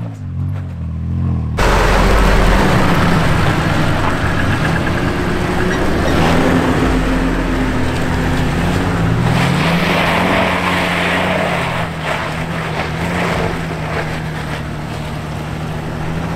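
A Jeep Cherokee XJ's engine revving up and down as it crawls up a steep rock ledge, its pitch rising and falling under a loud steady rush of noise. It opens with a short stretch of another truck's engine, which cuts off suddenly about a second and a half in.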